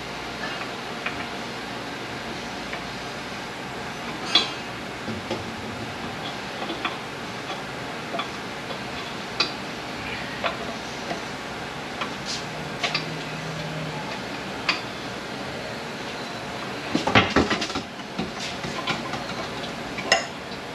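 Steel transmission parts clinking and knocking against each other and the case as the internals of a Ford MT82 six-speed manual transmission are worked loose by hand. Scattered light clicks, with a louder run of clanks about 17 seconds in.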